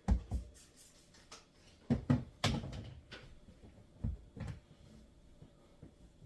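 Irregular knocks and thumps, about seven in six seconds, the strongest a little past two seconds in. They are typical of the lifted, dented sheet-metal roof around the shark-fin antenna mount being tapped down with a block of wood.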